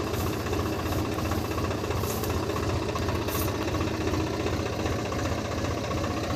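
Swaraj 744 XT tractor's diesel engine running steadily with an even, low throb.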